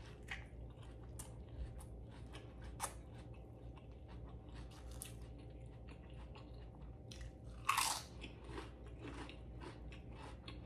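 Close-miked biting and chewing of a burger with raw onions and lettuce: crisp crunches and wet mouth noises at an uneven pace, with one louder bite near the end.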